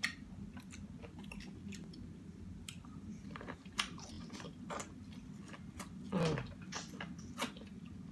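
Close-up eating sounds from a seafood boil: chewing and biting, with scattered sharp crunchy clicks and wet mouth noises.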